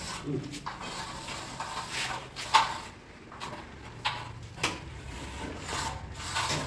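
Hollow square metal bar knocking and scraping against a plastered and tiled wall as it is slid and repositioned by hand, with about half a dozen sharp knocks, the loudest about two and a half seconds in.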